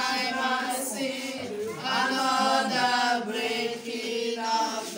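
A small group of women singing together without accompaniment, holding long notes that shift in pitch now and then.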